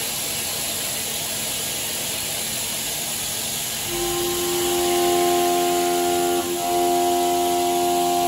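WIDIA WCE4 16 mm four-flute solid carbide end mill in high-speed trochoidal milling of stainless steel on a CNC machining centre. At first there is only a steady hiss. About four seconds in, the cutter engages the block and a steady pitched tone sets in, the tooth-passing note of four flutes at about 5,300 rpm. The tone breaks off briefly a little after six seconds in.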